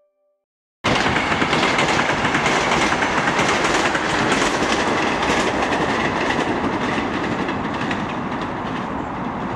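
ES1P 'Lastochka-Premium' electric multiple-unit train running through the stop, its wheels on the rails making a loud, steady rush of noise. The noise starts abruptly about a second in and slowly fades as the train moves away.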